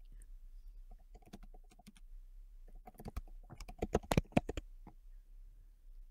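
Typing on a computer keyboard: a short run of key clicks about a second in, then a faster, louder flurry of keystrokes from about three to four and a half seconds in.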